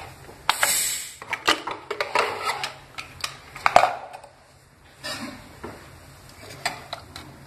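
Pressure cooker lid being unlocked and lifted off the pot: a brief hiss near the start, then scattered metal clicks and clanks of the lid and handles against the pot.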